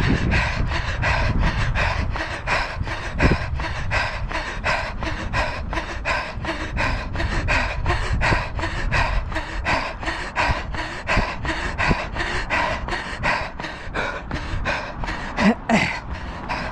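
A runner panting hard in step with his footfalls, about three strides a second, at a fast tempo pace, with wind rumbling on the microphone. A short gliding tone sounds near the end.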